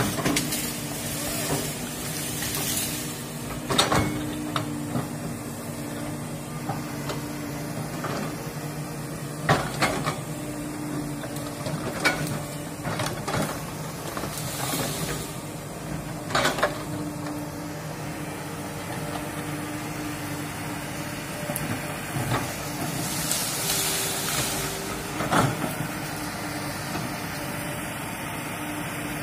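Komatsu tracked hydraulic excavator's diesel engine running steadily under load as the bucket pushes over trees, with sharp cracks of breaking trunks and branches every few seconds and brief rustling swishes of leafy branches.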